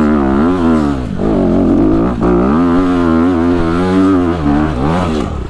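Honda dirt bike engine revving hard under load up a steep hill climb, its pitch rising and falling about twice a second with the throttle, dropping near the end.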